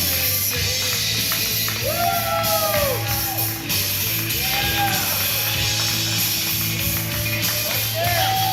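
Rock music playing, with sustained sung or guitar lines over a steady bass.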